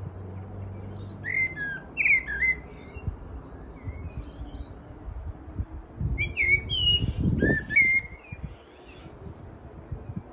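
A songbird singing in a tree: two bursts of quick chirps and warbled whistles, the first about a second in and the second about six seconds in, over a low rumble.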